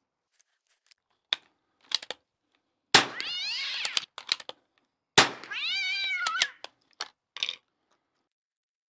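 .22 rimfire bolt-action rifle firing two fouling shots about two seconds apart, each sharp report followed by about a second of a whine that rises and then falls in pitch. Small clicks come before and between the shots.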